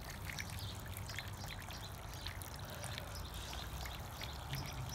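Steady trickling and splashing of water churned up by a motorised LEGO toy boat's propeller as it moves through the pool.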